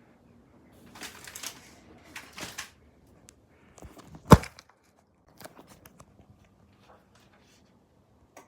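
Packaging being handled and torn open: two rustling, tearing swishes, a sharp thump about four seconds in, then small clicks and rustles.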